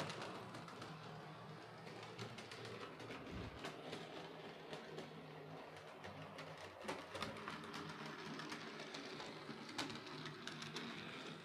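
OO-gauge model steam locomotive, an Oxford Rail Dean Goods, running along the track: a steady low motor hum with frequent small clicks from the wheels and track.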